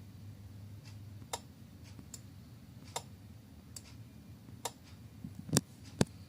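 A handful of sharp, irregular clicks, about five, the last two near the end the loudest, over a steady low hum.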